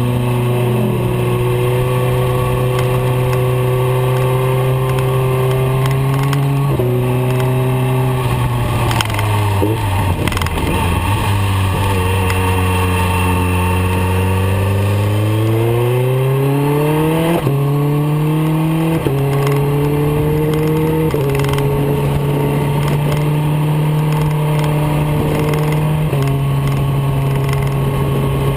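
Motorcycle engine recorded onboard while riding: a steady engine note that drops as the bike slows for a bend about ten seconds in, then climbs as it accelerates out. There are sudden steps in pitch around seven, seventeen, twenty-one and twenty-six seconds, like gear changes.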